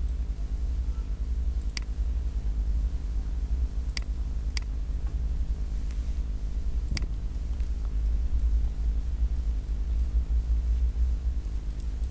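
Steady low electrical hum with a buzz of evenly spaced overtones, broken by four sharp computer mouse clicks: one about two seconds in, two close together around four to four and a half seconds, and one at about seven seconds.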